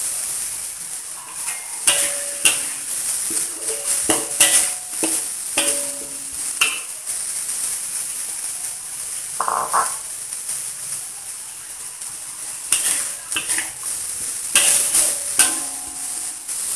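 Ground spice paste sizzling in hot oil in a metal wok while a metal spoon scrapes and clanks against the pan as it is stirred. The strikes come in quick clusters, each leaving a short metallic ring, and they thin out for a few seconds in the middle.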